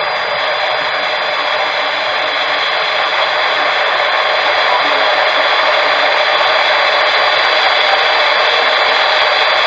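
Steady, loud hiss of radio static from a receiver.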